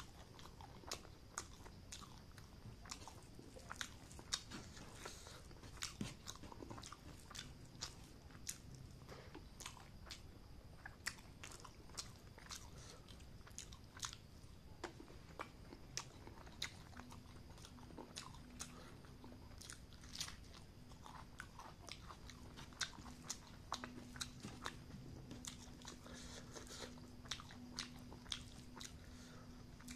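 A person chewing and eating close to the microphone, with sharp mouth clicks about once or twice a second. A faint low hum comes in about halfway through.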